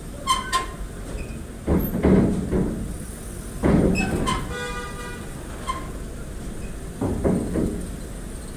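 Vehicle traffic at a ferry's loading ramp: several heavy rumbles and thuds, with scattered clanks and a short horn toot about four and a half seconds in.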